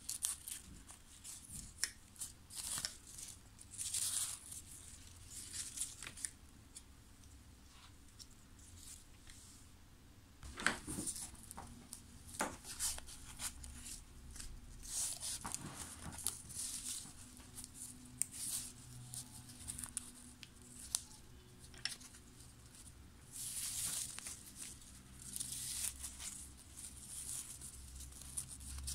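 Black satin ribbon rustling and rubbing against a plastic headband as it is wound on and pressed down by hand, in short irregular scrapes and crinkles.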